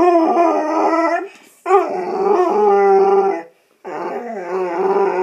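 Pit bull howling in long, wavering notes, its 'singing': one howl tails off about a second in, a second lasts nearly two seconds, and a third starts after a short pause and runs on past the end.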